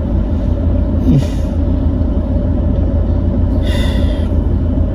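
Steady low hum of a car idling, heard inside the cabin, with a few short puffs of breath blown out, the strongest about four seconds in.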